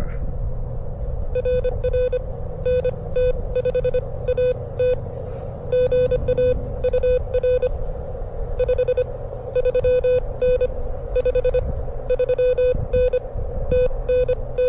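Amateur radio CW: a single beep tone keyed on and off in fast Morse code dots and dashes, at about 25 words per minute, with short pauses between groups. Wind rumbles on the microphone underneath.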